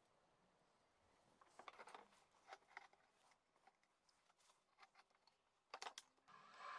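Near silence with faint knocks and clicks as pine boards are handled and set down on pipe clamps. A sharper double click comes near the end.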